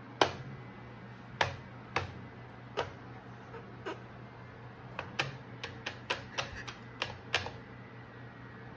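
A cat's paw striking a hair dryer in quick swipes: sharp, irregular taps, spaced out at first and then coming in a fast run in the second half.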